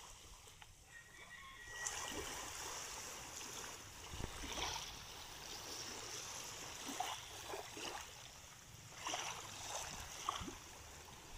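Quiet lapping of calm sea water with a few soft, irregular splashes from a small raft being paddled.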